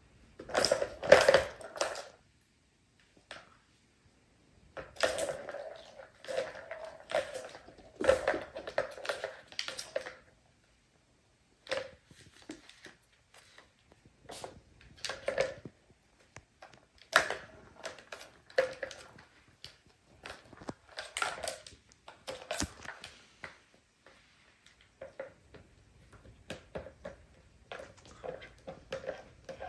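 Plastic balls rolling and rattling around the tracks of a three-tier plastic cat tower as kittens bat at them, in bursts of clatter with short pauses between.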